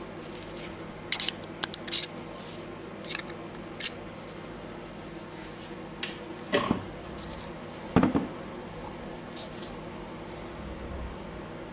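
Small steel parts of a DeWalt DCH273 rotary hammer clinking in the hands and being set down on a wooden tabletop. A scatter of sharp clicks comes in the first few seconds, and two louder knocks come about six and a half and eight seconds in.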